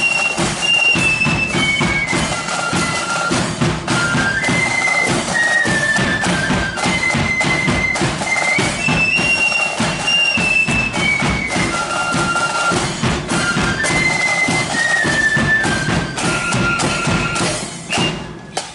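Marching flute band playing a melody in unison on side-blown flutes over a steady beat of drums. The music fades out near the end.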